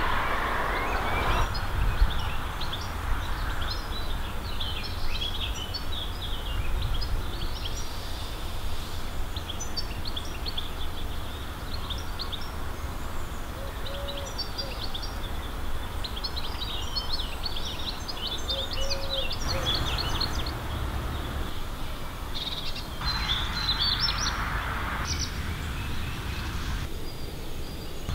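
Several songbirds chirping and singing in quick short notes, thickest in the middle stretch and again near the end, over a steady low rumble.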